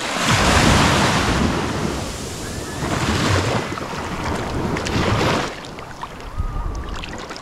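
Small waves washing in over the sand at the water's edge, in three surges a couple of seconds apart, with wind rumbling on the microphone.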